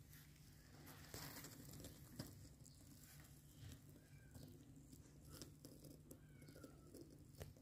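Kittens nursing at a mother cat's belly: faint scattered suckling clicks and the rustle of fur against fur and fleece. Two faint, thin, falling squeaks come in the second half.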